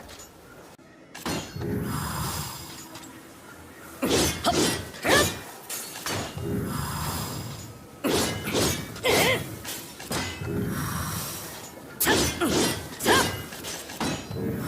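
Ōdachi sword sound effects: a soft swish followed by a cluster of sharp metallic clashes with ringing, scraping tones, repeated three times about four seconds apart.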